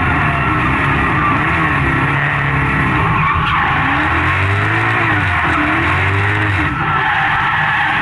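LS1 Chevrolet V8 in a BMW E36 drift car, heard from inside the cabin, its revs rising and falling repeatedly while the rear tyres skid and squeal through a drift.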